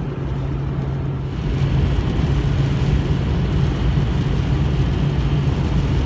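Pickup truck with a truck camper driving, heard from inside the cab: a steady low engine hum under road, wind and rain noise, which grows louder about a second in.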